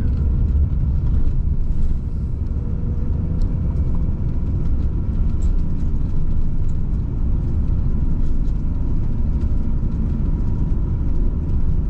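Steady low rumble of engine and tyre noise heard from inside a Citroen van's cab while driving, with faint steady tones above it; the level dips slightly about two seconds in.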